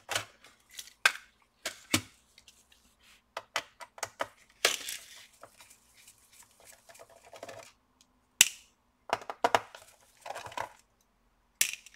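Irregular clicks, scrapes and rustles of gloved hands handling a plastic laptop case and small screws, with one sharp click a little past the middle.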